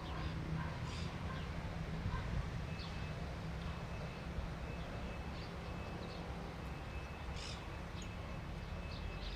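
Short, scattered bird chirps over a steady low rumble, with a thin, steady high tone setting in about three seconds in.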